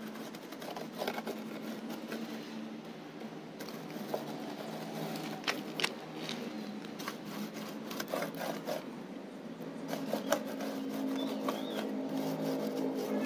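Small paint roller working thick textured cement paint onto a wooden speaker box and dipping into a plastic bucket, giving scattered soft scrapes and clicks. Under it runs a steady low hum that grows slightly louder near the end.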